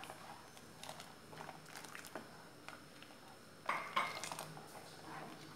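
Plastic ladle stirring milk in a cooking pot, scraping and clicking faintly against the pot, with a few louder knocks about four seconds in as the ladle is lifted.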